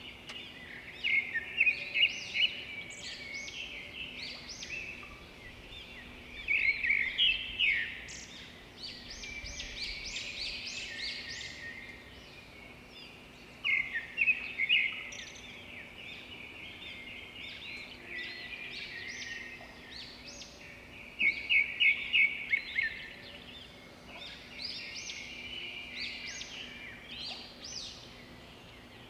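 Small birds chirping in repeated bouts of rapid, high chirps, a few seconds apart.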